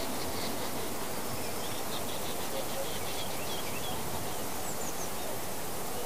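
Summer forest ambience: a steady hiss of background noise with small birds chirping, a run of short chirps in the middle and a few high, thin notes near the end.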